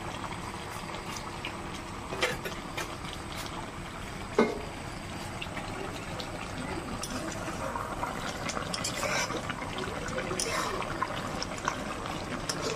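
Chicken curry simmering in a metal kadai, bubbling steadily and more busily in the second half, with a couple of sharp clicks.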